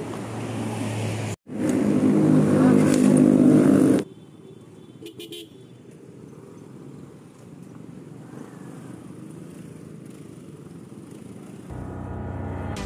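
A vehicle horn sounding steadily for about two and a half seconds, then quieter traffic and road noise; music comes in near the end.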